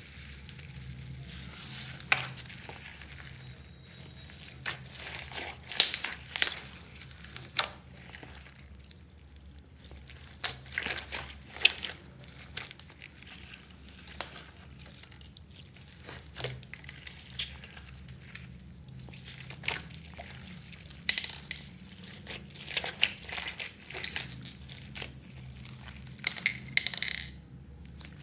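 Hands kneading and squeezing slime packed with foam beads and plastic beads: irregular crackling, squishing and popping in clusters, some pops sharp and loud, over a faint low hum.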